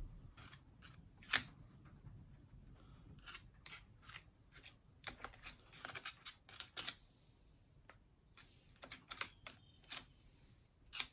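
Light metallic clicks and scrapes of a screwdriver working grease into the open gear housing of a reciprocating saw, an irregular run of small ticks with one sharper click about a second and a half in.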